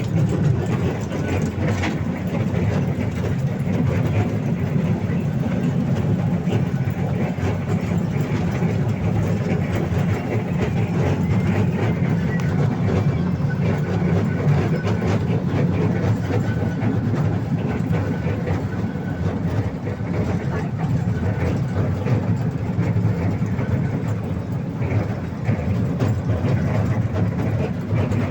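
Park toy train running along its track, heard from aboard: a steady low rumble with faint rail clatter.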